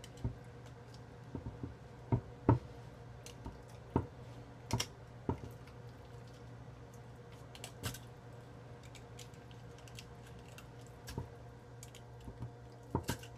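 Knife cutting down the belly of a channel catfish on a wooden board: scattered, irregular small clicks and taps as the blade works through skin and cartilage, over a steady low hum.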